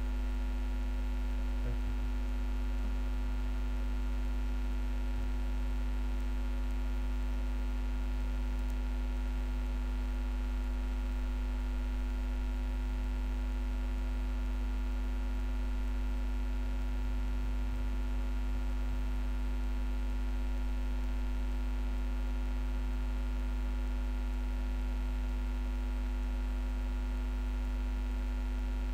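Steady electrical hum: a strong low drone with several fainter steady tones above it, unchanging throughout.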